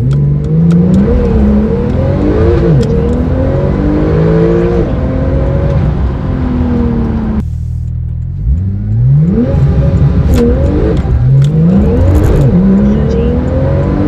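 Porsche 911 Turbo S twin-turbo flat-six accelerating hard, its pitch climbing and dropping back with each gear change, in two full-throttle runs with an abrupt cut between them about halfway through.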